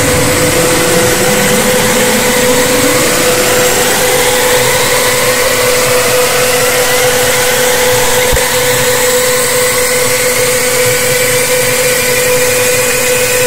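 Loud, distorted electronic drone: a steady hum-like tone under a harsh noisy hiss, with tones sweeping upward in pitch during the first few seconds and a single click about eight seconds in.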